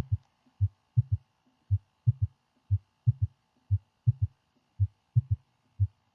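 Recorded heart sounds in a triple, galloping rhythm, about one beat a second: each beat has three dull low thumps, the third following close behind the second. This is a third heart sound (S3), produced early in diastole by the sudden slowing of blood flowing into the left ventricle from the left atrium. A faint steady hum lies underneath.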